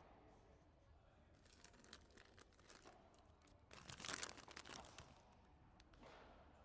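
Faint padel rally sounds: players' shoes scuffing and crunching on the artificial-turf court, with short sharp taps of ball on racket and glass. The loudest scuffing comes about four seconds in, as the near player moves in and swings.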